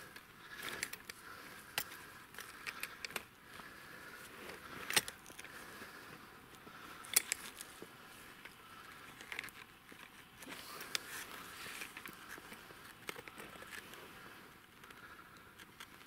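Metal clinking and scraping of a steel jaw trap being handled as a caught sable is taken out, with scattered sharp clicks (the loudest about five and seven seconds in) and soft rustling in between.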